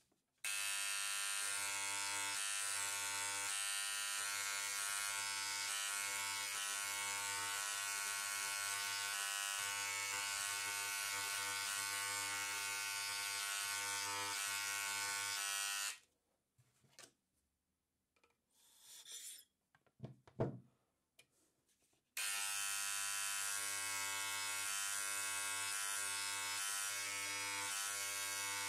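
Air scribe buzzing steadily as its needle chips shale away from a trilobite fossil. It stops about 16 seconds in, leaving a few faint taps and a brief knock, then starts again about 22 seconds in.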